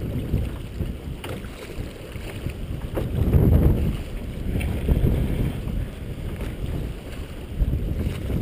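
An aluminium dinghy being rowed: the oars knock in their rowlocks now and then, over a low wind rumble on the microphone.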